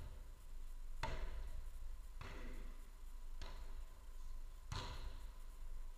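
A footvolley ball struck five times in a rally, about a second apart, each hit a sharp thud with a short echo in the hall.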